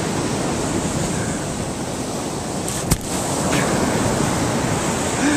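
Surf washing on the beach, a steady rushing noise, with wind buffeting the microphone. A single sharp click about three seconds in.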